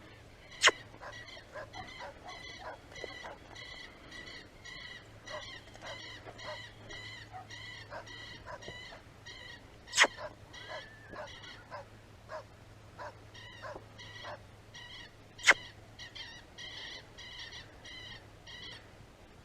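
A small metal bell on a hunting dog's collar jingling in a quick, irregular rhythm as the dog moves, with three sharp, loud clicks spread through the stretch.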